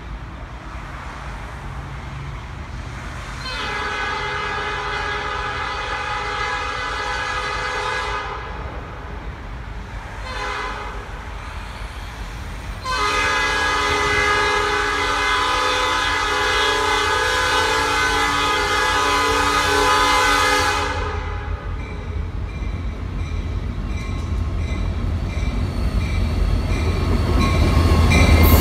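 Nathan P5 chime horn on a Norfolk Southern SD40-2 sounding for a grade crossing: a long blast about three seconds in, a short one around ten seconds, then a blast held about eight seconds as a dump truck cuts across in front of the train. After that the locomotives' diesel engines and wheels grow louder as they pass close by.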